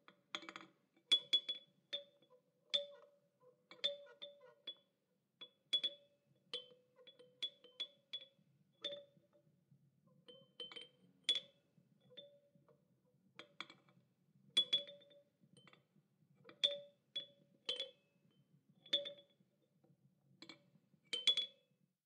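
A child's toy chime clinking and clanking, struck over and over at an uneven pace, sometimes in quick little clusters. Each strike rings briefly on the same pair of notes, one low and one high.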